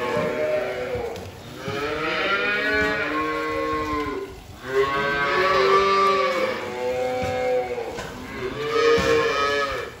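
Black-and-white dairy calves bawling: a string of drawn-out calls, one after another and partly overlapping.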